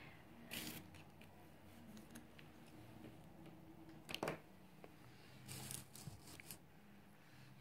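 Nearly quiet, with a few short rustles and clicks of cables being handled, the sharpest about four seconds in, over a faint low hum.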